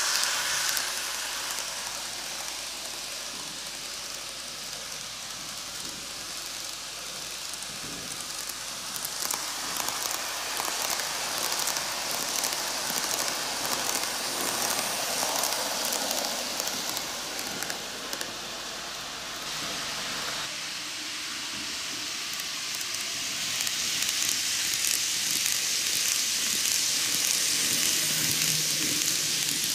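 N-gauge model electric trains running on curved track: a steady rushing hiss of wheels on rail and motor hum. It eases a few seconds in and swells again near the end as cars pass close by.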